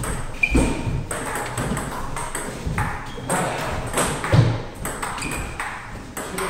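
Table tennis ball clicking off the paddles and the table, a quick irregular series of sharp pings during play.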